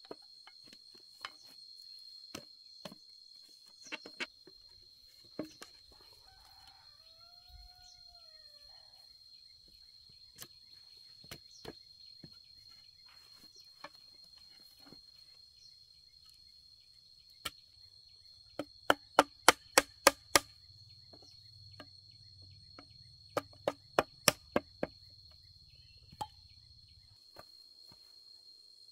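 Sharp knocks of bamboo being struck as a bamboo frame is fitted together: scattered taps, then a quick run of about seven hard strikes past the middle and another of about six a few seconds later. A steady high insect trill runs underneath.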